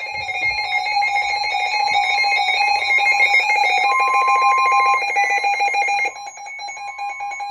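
Electronic alert alarm of a weather radio: a loud, fast-pulsing electronic tone sounding steadily, signalling that a new severe weather warning is being received. It drops noticeably in volume about six seconds in.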